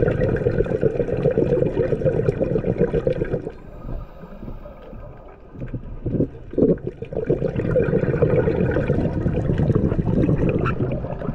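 Muffled underwater bubbling and rumbling of a scuba diver's exhaled air. It comes in two long stretches, with a quieter gap of about two and a half seconds in the middle.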